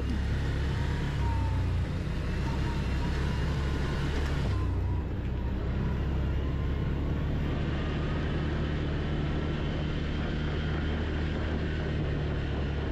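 Quad (ATV) engine running steadily while riding, with a constant rush of wind and track noise; the hiss eases a little about five seconds in.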